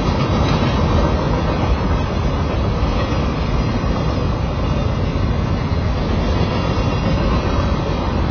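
Kansas City Southern freight train's boxcars and covered hoppers rolling past, a steady rumble of steel wheels on rail.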